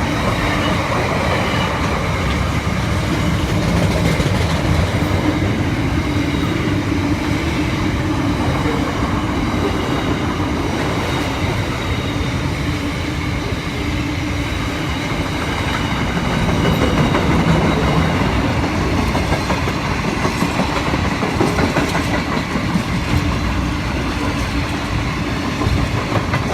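Long freight train rolling steadily past, its wheels clattering over the rail joints.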